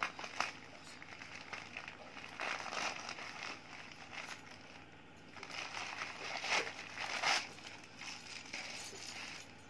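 Parcel packaging rustling and crinkling as it is opened by hand, with a few sharp clicks.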